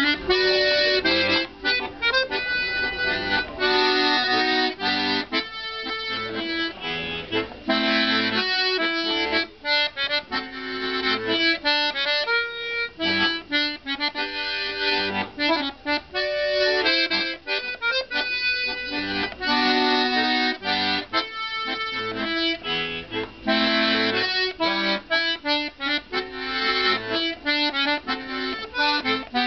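Diatonic button accordion playing a folk tune, a quick run of short, separate melody notes over chords.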